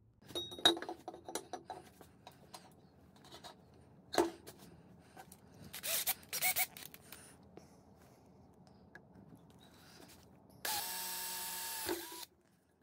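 Clattering and clicking of tools being handled, then a cordless drill running steadily for about a second and a half near the end as it bores a small hole into a metal cylinder.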